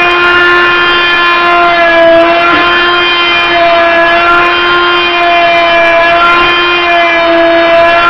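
Hyper Tough 2.1-amp corded oscillating multi-tool running under load with a scraper blade, scraping linoleum off a wood subfloor: a loud, steady, high buzz with a rasping scrape underneath.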